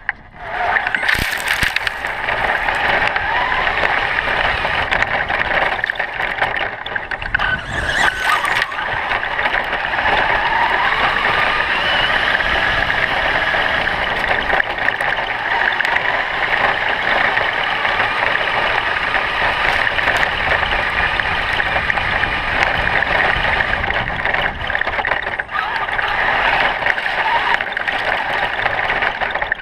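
Electric motors of Traxxas E-Maxx RC monster trucks running hard with tyre noise, the motor whine rising and falling as they speed up and slow down. Two brief loud rushes of noise come about a second in and about eight seconds in.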